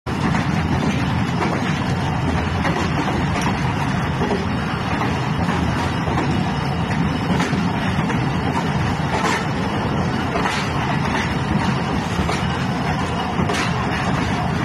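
Passenger train running over a bridge, heard from an open coach door: a steady rumble of wheels on the rails, with faint clicks about once a second as the wheels cross rail joints.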